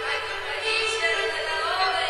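Recorded program music accompanying a figure skating routine: a melody of sustained notes, with one note gliding in pitch in the second half.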